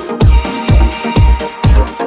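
Electronic dance music with a steady four-on-the-floor kick drum, about two beats a second, over sustained synth chords.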